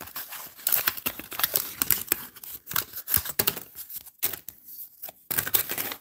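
Wax-paper wrapper of a trading card pack being torn open and crinkled, an irregular run of sharp crackles and rips.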